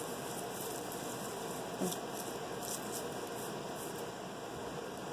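Papery garlic skins crackling as cloves are peeled and handled by hand: a few faint crisp ticks over a steady hiss, the sharpest about two seconds in.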